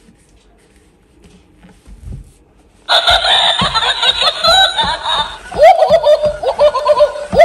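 Interactive plush toy dog's electronic giggling laughter, coming on suddenly about three seconds in and running on in quick rising and falling chuckles while the toy shakes.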